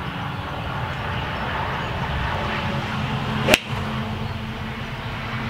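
A TaylorMade M2 2017 7-iron striking a Titleist golf ball off a turf mat: one sharp crack about three and a half seconds in, over a steady low background rumble.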